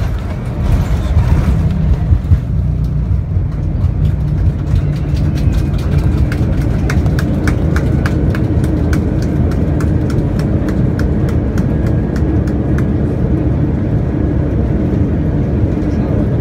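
Airbus A321 cabin on its ground roll along the runway: a loud, steady low rumble of engines and wheels. Through the middle comes a run of quick, evenly spaced clicks.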